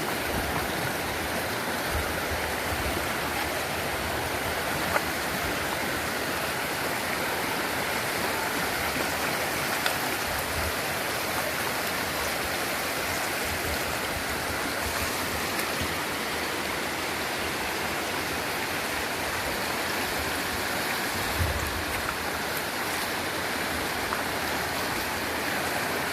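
Steady rush of flowing stream water, with a couple of brief sharp clicks.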